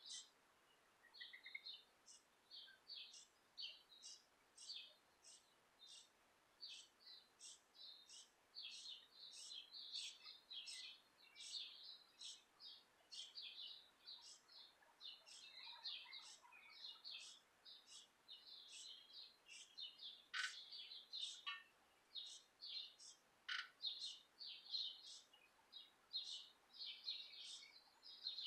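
Faint chirping of birds: short, high notes, a few every second, sparse at first and then quick and overlapping.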